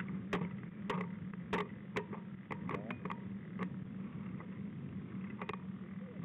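Mountain bike rolling over snow: a steady rolling rumble with irregular sharp clicks and rattles, about two or three a second.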